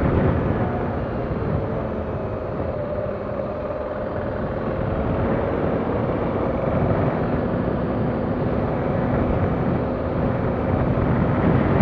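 A motor vehicle's engine running at a steady pace, with its hum drifting slightly in pitch, under road and wind noise while travelling.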